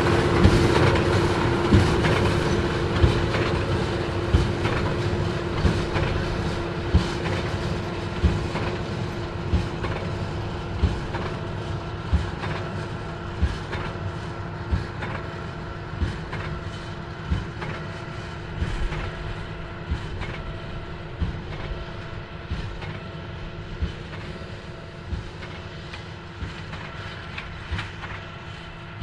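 John Deere 8530 tractor's six-cylinder diesel running steadily while pulling a Krone BigPack 1290 HDP HighSpeed large square baler, with a regular thump about every 1.3 seconds from the baler's plunger packing the bale. The sound fades steadily as the rig moves away.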